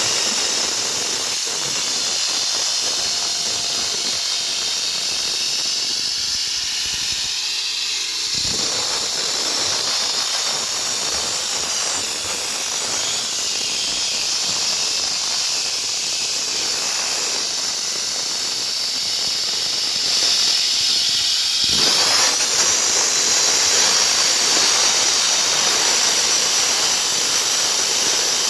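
Diamond-blade concrete cutting saw cutting through a reinforced concrete slab: a steady, high-pitched whine with a grinding hiss. The grinding changes in tone about a third of the way in and grows louder past two-thirds of the way through.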